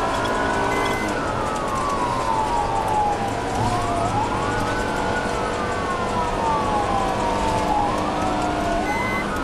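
Police car siren wailing, each cycle rising quickly and falling slowly, about every four and a half seconds. It is heard from inside a moving patrol car at pursuit speed, over engine and road noise.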